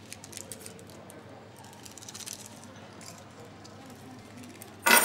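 Faint paper rustling and small clicks as sugar is torn open and added to a china coffee cup, then a single sharp clink with a short ringing near the end, like a spoon striking the cup.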